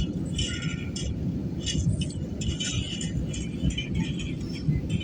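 Airliner cabin noise during the climb after takeoff: a steady low rumble of engines and airflow, with irregular higher hissing sounds coming and going over it.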